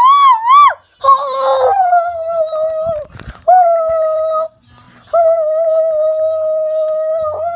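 A person's voice holding long, steady high notes: three in a row with short breaks between, the first sliding down at its start and the last the longest.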